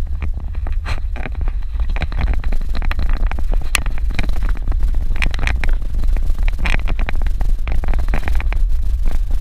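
Suzuki Jimny driving over a rough dirt road: a steady low rumble with frequent irregular knocks and rattles from the bumps.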